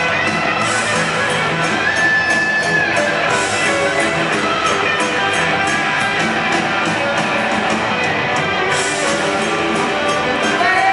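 Rock band playing live in an arena: distorted electric guitars and drums in an instrumental stretch of the song, heard from the crowd.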